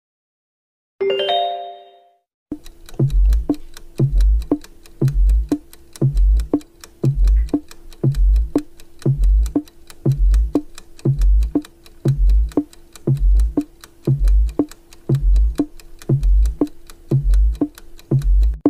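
Countdown timer sound effect: quick clock-like ticks with a low thump about once a second over a held low tone. A short chime sounds about a second in, before the ticking starts.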